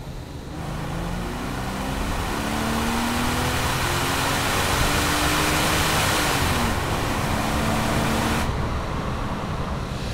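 Daimler Double Six's 5.3-litre pre-HE Jaguar V12 accelerating hard, its exhaust note heard from outside the car: the pitch climbs steadily, dips briefly at an upshift about two-thirds of the way through, then climbs again. A rush of wind and road noise runs underneath and cuts off shortly before the end.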